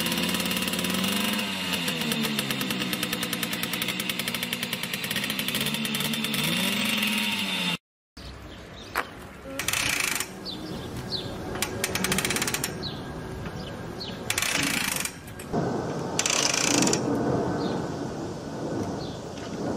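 A Simson two-stroke moped engine running and being revved, its pitch rising and falling. After a sudden cut, a Solo moped is being pedal-started, with intermittent mechanical clatter and short bursts that grow louder near the end.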